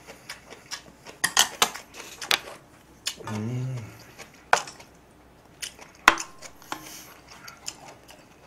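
Chopsticks and a spoon clicking and scraping against a metal pot and a small plate while food is scooped and eaten, in scattered sharp clinks. A short hummed 'mm' from the eater about three seconds in.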